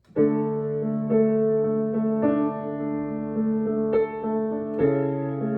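Piano playing the introduction to the opening hymn: sustained chords, a new one struck about once a second, over a held bass note.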